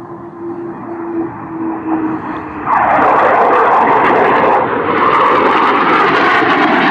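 Jet noise from a Eurofighter Typhoon's twin Eurojet EJ200 turbofans in display flight: a steady whine over the engine noise at first, then abruptly much louder about two and a half seconds in as the fighter comes close.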